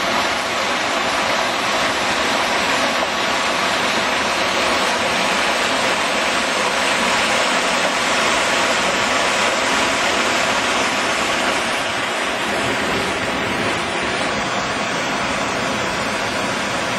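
Storm runoff after a hard rain rushing in a ravine and pouring over a rock-filled wire gabion: a loud, steady sound of fast-moving water.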